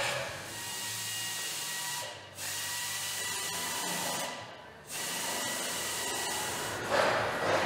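A power tool running steadily, stopping for a moment about two seconds in and again about four and a half seconds in.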